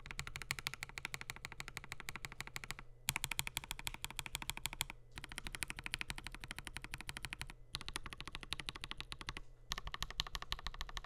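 Fast typing on a Kemove K87 mechanical keyboard with lubed, filmed Gateron linear switches, a stainless steel plate and PBT keycaps. Keystroke clicks come in dense runs of about two seconds, with brief pauses between them.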